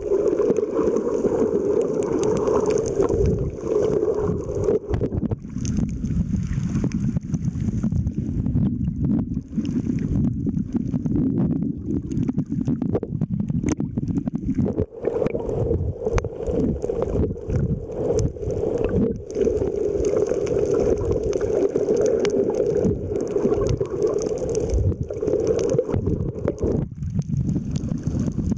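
Muffled underwater noise of a camera moving through the water: a steady rushing and churning rumble with a low hum in it.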